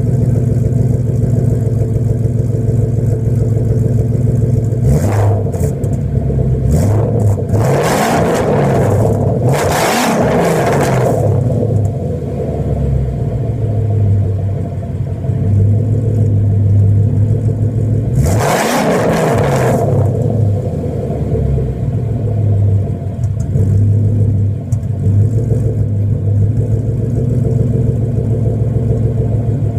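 2012 Mustang GT's 5.0 L V8 idling through a Pypes 3-inch off-road X-pipe (no catalytic converters) and Magnaflow Competition cat-back exhaust. It is blipped up several times in quick succession, then once more a while later, each rev rising and falling back to idle.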